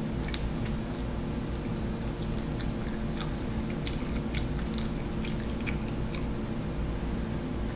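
A person chewing vegan chicken bites, with scattered small mouth clicks and smacks over a steady low hum in the room.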